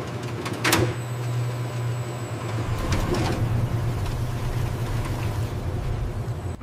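Large laboratory drum machine running with a steady low hum. A whoosh comes about 0.7 s in and a softer one near 3 s.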